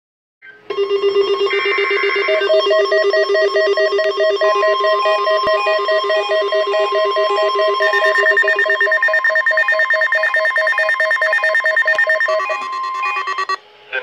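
Several NOAA weather radios sounding their alert tones at once on receiving a Required Weekly Test: a layered chorus of steady and pulsing electronic beeps, some repeating about twice a second. The tones all cut off shortly before the end.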